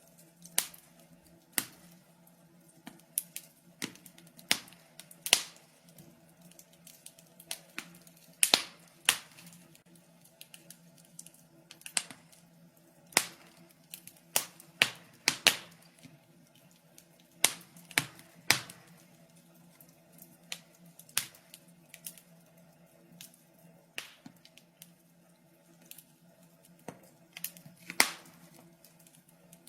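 Wood fire crackling in a fireplace: irregular sharp pops and snaps, some in quick clusters, over a faint steady hum.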